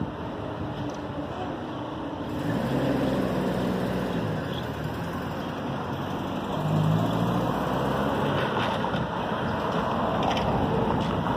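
Cars pulling away and driving over a railroad crossing: engines and tyre noise, growing louder about two seconds in and staying steady as the vehicles pass.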